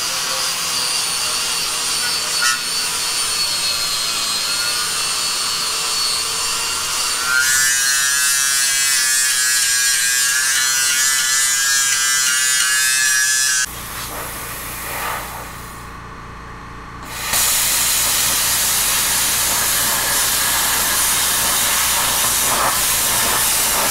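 Angle grinder with a polycarbonate paint-stripping disc grinding against metal, stripping paint and grime. It eases off briefly about two-thirds of the way through, then runs loud again.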